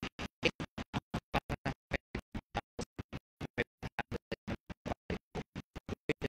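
Choppy, stuttering audio: the sound is cut into short snippets about seven times a second with dead silence between them, so the voice in it comes through only as broken fragments. This is the sign of audio dropouts in a poor stream or recording.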